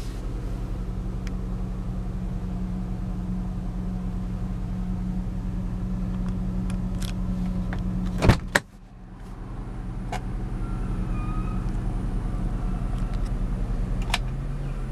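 2002 Proton Perdana's V6 engine idling steadily, heard from inside the cabin. About eight seconds in there is a single sharp click as the interior door handle is worked, and near the end the idle note steps up slightly as the climate controls are switched on.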